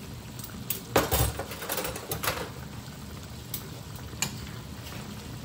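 Duck breasts simmering in a thickened sauce in a frying pan, with a few clinks and knocks of pans and utensils, the loudest about a second in.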